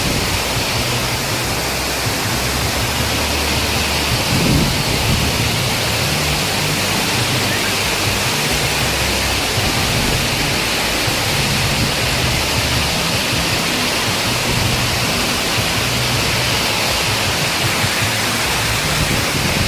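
Waterfall: water falling and rushing in a steady, loud hiss.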